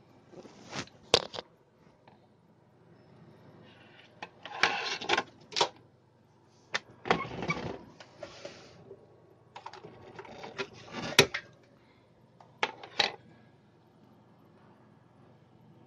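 Plastic sunglasses being handled against a wooden desk: bursts of clicks, taps and rubbing as the frame and folding arms are moved and set down, with a few sharp clicks, the loudest about a second in and near the middle.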